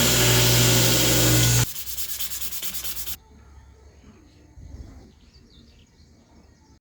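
Abrasive grinding on a spring-steel knife blade: a loud, steady sanding noise over a motor hum for the first couple of seconds. It gives way to a fainter, rhythmic scraping, which stops about three seconds in.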